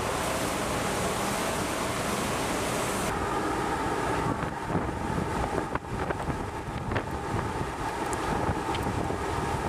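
Wind buffeting the microphone over the rush of sea water churning between two ships steaming close alongside each other. About three seconds in the hiss of the wind lessens and a faint steady machinery hum shows under the water noise.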